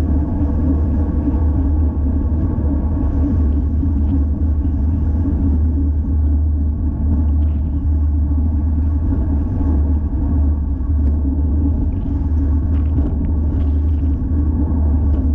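Steady, loud wind rumble on the action camera's microphone while riding a road bicycle, mixed with road noise.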